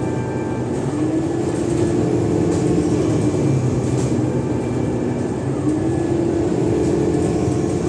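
Cummins ISLe340B diesel engine of an Alexander Dennis Enviro 500 double-deck bus running under way, its engine note rising about a second in, dropping around three seconds, then rising and holding again near the end.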